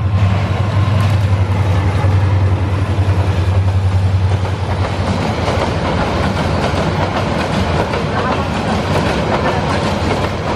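EMD GT18LA-2 diesel-electric locomotive's engine running with a steady low drone, which gives way about four seconds in to the continuous rumble and clatter of passenger coaches' wheels rolling past over the rails.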